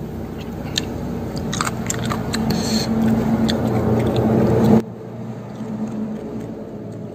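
A person chewing and crunching mouthfuls of pounded water spinach salad, with scattered short crunches and mouth clicks, over a steady low hum that drops away about five seconds in.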